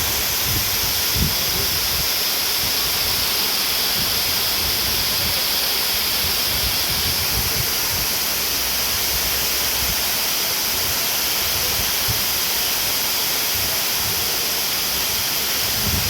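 Water pouring over the spillway of a full, overflowing reservoir dam: a steady, powerful rush. A low thump about a second in and another near the end.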